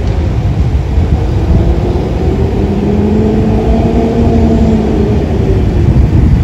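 A vehicle passing on the road, its hum rising and then falling in pitch over a few seconds, under heavy wind buffeting the microphone.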